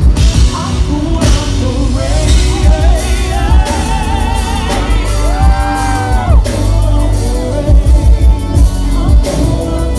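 Live R&B performance: two women singing into microphones over a drum kit and heavy bass through the stage PA. There is a long, wavering held note about halfway through.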